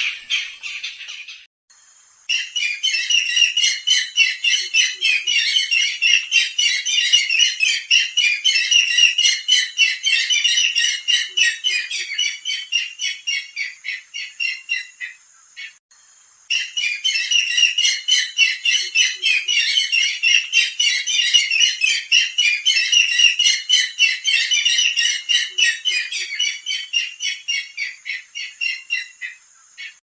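Barred rails (sintar zebra) calling: a dense run of fast, repeated high calls in two long bouts of about thirteen seconds each, with a short break about two seconds in, another in the middle and one near the end.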